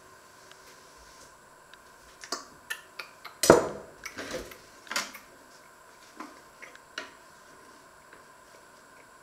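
Clicks and knocks from a two-slot pop-up toaster being handled, the loudest a short clunk about three and a half seconds in, followed by a few lighter clicks.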